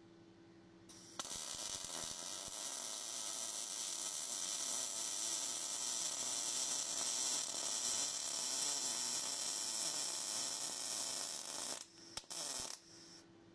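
A machine running with a steady, high hissing whir that starts abruptly about a second in and cuts off near the end, flickering briefly as it stops. A faint low hum lies underneath before and after.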